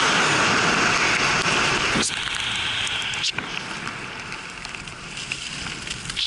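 Skis sliding fast over snow, a loud crackling hiss mixed with wind rushing over the microphone. Two sharp clicks come at about two and three seconds in, after which the hiss gradually eases as the skier slows.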